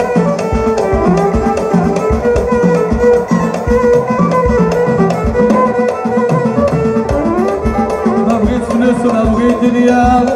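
Live Moroccan chaabi band playing: violins and keyboard carry a wavering melody over a fast, steady drum rhythm.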